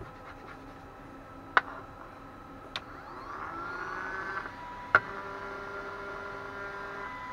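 Small cooling fan from an Eltek Flatpack power supply running on the bench during fan balancing: a steady whine that rises in pitch as it spins up about three seconds in, then changes to a different steady tone about five seconds in. Three sharp clicks, about one and a half, three and five seconds in, are the loudest sounds.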